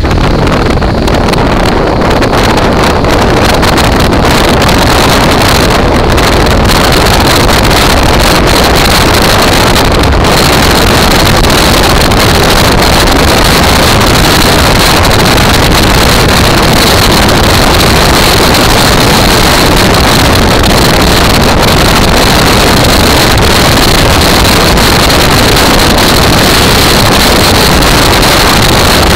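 Motorcycle on the move: loud wind rushing over the microphone with the bike's engine running underneath, swelling over the first couple of seconds as it picks up speed and then holding steady at road speed.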